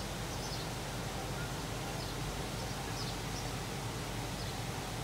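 Steady outdoor background noise with a few faint, brief high chirps of birds scattered through it.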